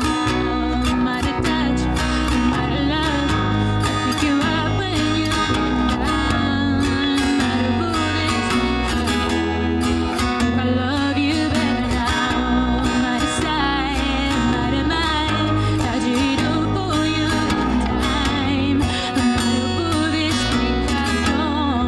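Live acoustic guitar and electric bass guitar playing together, with the bass line coming in right at the start.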